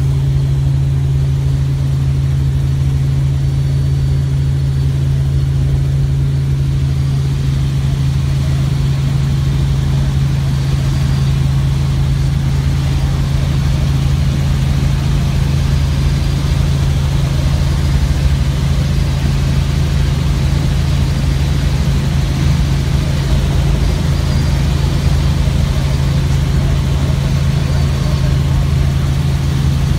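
Light helicopter's engine and rotors in flight, heard from inside the cabin: a loud, steady drone with a strong low hum that holds unchanged throughout.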